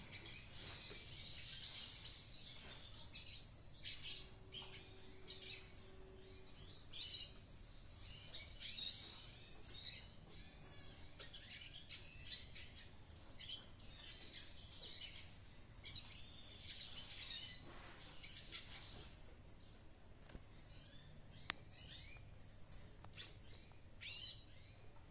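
Red siskin twittering actively: a run of quick, high chirps and short trills.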